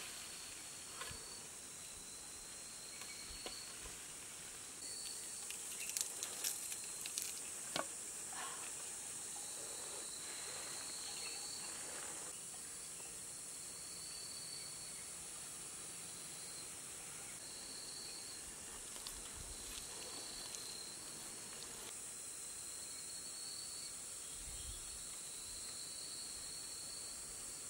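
Insects chirring steadily in a high hiss, with a shrill insect trill that repeats in stretches of a second or two. A few sharp clicks come about six to eight seconds in.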